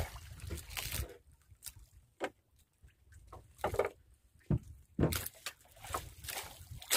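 Water sloshing and splashing against a small wooden outrigger boat, with scattered light knocks and splashes while a hand line is hauled in against a hooked fish. Several louder splashes come near the end.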